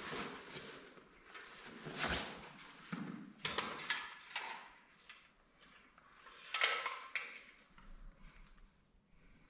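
Irregular clatter, knocks and rustling of camping gear and cookware being handled and set out, with a few louder knocks and rustles about two, four and seven seconds in.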